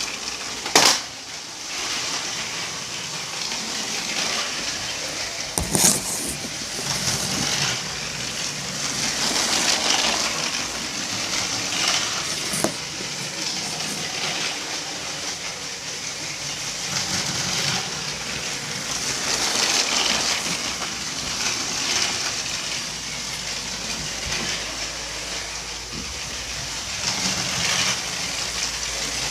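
Lego 7938 passenger train's electric motor running and its plastic wheels rattling along plastic track, a steady clattering whir that swells and fades as the train goes round. There are sharp knocks about a second in and about six seconds in.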